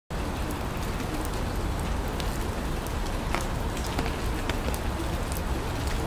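Steady summer monsoon rain falling on leaves and grass, with many separate drops ticking close by and a low rumble underneath.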